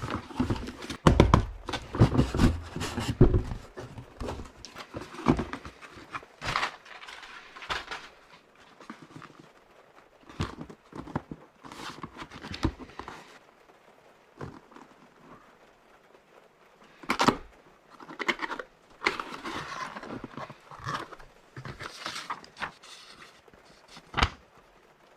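Unboxing and handling noises: irregular rustling and crinkling of packaging with clicks and knocks, heaviest with dull thumps in the first few seconds.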